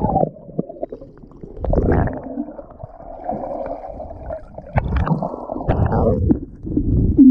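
Underwater sound of a swimmer in open water: dull, muffled surges of rushing water with his strokes, about two seconds in and again around five to six and a half seconds, with bubbling as he exhales near the end.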